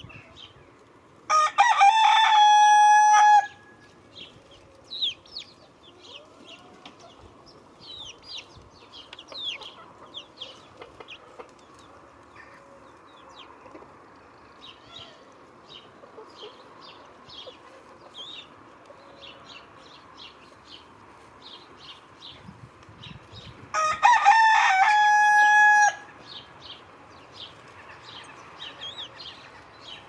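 A rooster crows twice, about twenty seconds apart, each crow a loud, drawn-out call of about two seconds. Small songbirds chirp and twitter throughout.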